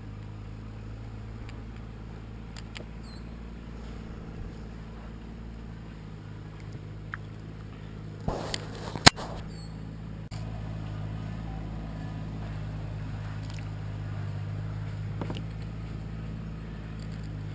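A motor runs with a steady low hum throughout. About halfway there is a short scrape and a single sharp click.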